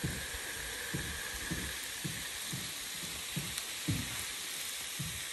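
Water spraying from a hose onto a vegetable bed: a steady hiss as the jet hits the soil and plants.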